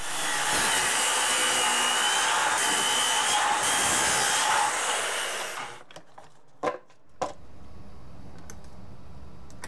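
Makita magnesium circular saw ripping thin shims from a pressure-treated board, running under load with a wavering whine for about five and a half seconds before stopping. Two short knocks follow about a second later.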